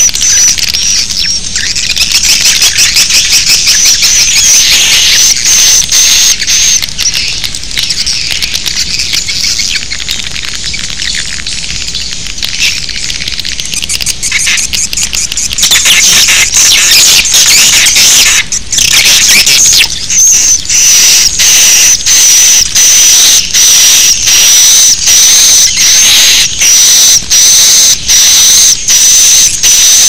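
Recorded baby-swiftlet lure call of the 'suara inap' (roosting) kind, used to draw swiftlets to a nesting house: loud, dense, shrill chirping with a thin high whistle over it. About halfway through it settles into regular pulses about once a second.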